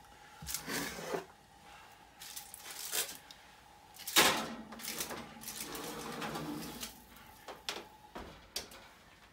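A foil-lined metal baking pan slides onto a metal oven rack, the loudest scrape and clatter coming about four seconds in. Near the end the oven door is pushed shut with a few sharp knocks.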